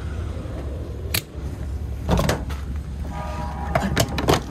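Fuel pump being handled: clunks and clicks of the nozzle about two seconds in and again near the end, with a short beep a little after three seconds, over a low steady rumble.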